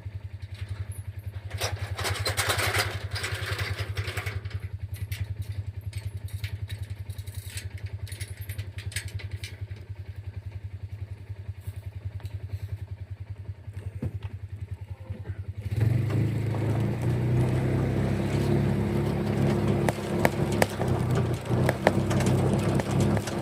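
A motor vehicle's engine running with a steady pulsing hum and some clatter. About sixteen seconds in it speeds up and runs louder.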